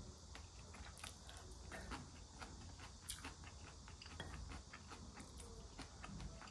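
Faint eating sounds: scattered small clicks of cutlery against a dish over a low steady hum.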